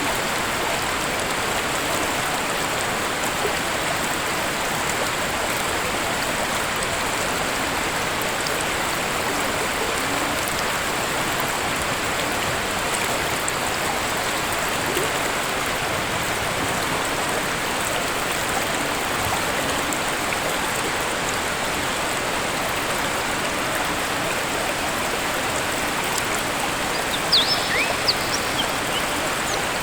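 Waterfall rushing in a steady, even roar of falling water. Near the end a bird chirps a few times over it.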